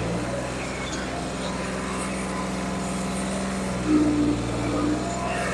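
Diesel engine of a New Holland 3630 tractor with a modified turbo and injection pump, working under heavy load while pulling a cultivator through soil. A louder, higher note comes in about four seconds in.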